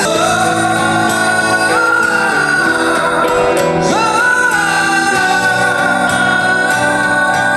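A song sung into a microphone over an instrumental backing track, amplified through a portable busking speaker, with long held notes and pitch glides.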